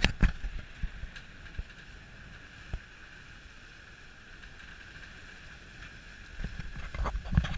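Wind buffeting the microphone in loud gusts near the start and again near the end, with a steady hiss of water rushing along the hull of a sailing schooner in the calmer stretch between.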